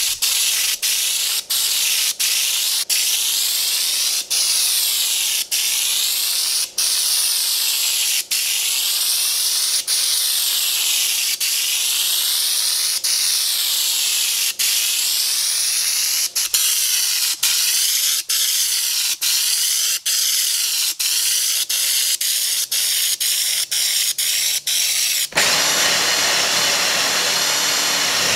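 Air-powered spray gun spraying bedliner coating from a screw-on can: a loud steady hiss broken by many brief pauses. About 25 seconds in it gives way to a drill boring into the coated plywood.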